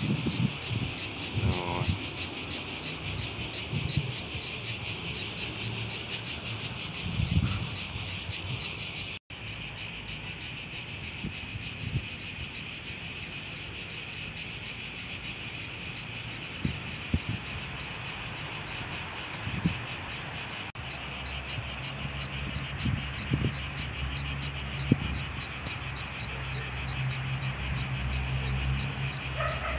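Insects trilling steadily, a high, rapidly pulsing buzz that keeps up throughout, with a brief cut about nine seconds in. A low rumble joins it in the later part.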